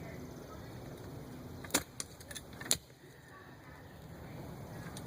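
Post hole digger jabbing into soil: a few sharp strikes and scrapes, roughly a second apart, over steady background noise.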